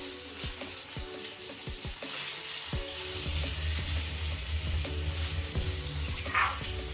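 Fish frying in hot oil in a pan: a steady sizzle broken by scattered sharp pops of spattering oil, under background music.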